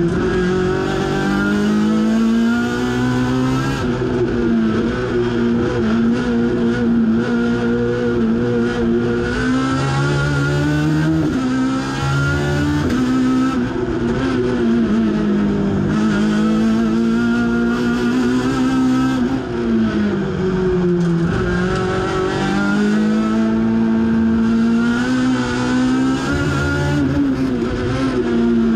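Race car engine heard from inside the cockpit, driven hard: its pitch climbs and falls again and again as the car accelerates, changes gear and slows for bends.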